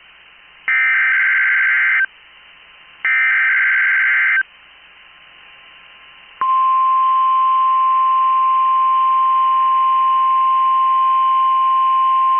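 Two NOAA Weather Radio SAME digital header bursts, each about a second and a half of shrill, warbling data tones with a short quiet gap between them. About six seconds in, the steady single-pitch 1050 Hz weather radio warning alarm tone comes on and holds loud.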